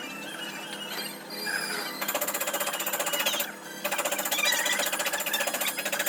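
A power tool hammering in rapid, even strokes, starting about two seconds in, pausing briefly, then running again. Before it there are faint squeaky chirps over a steady hum.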